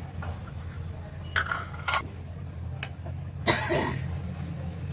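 Steel ladle clinking against a steel mixing bowl as batter is stirred: a few sharp clinks, the loudest about three and a half seconds in, over a steady low hum.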